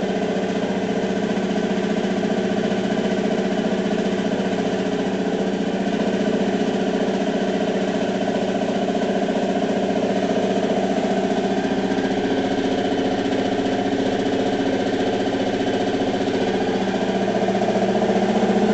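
Marble-working round machine running steadily with an even mechanical hum, in normal working order.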